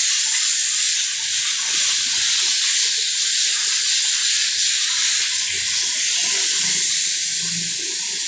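Compressed-air blow gun hissing steadily as it blows dust and dirt off a scooter engine.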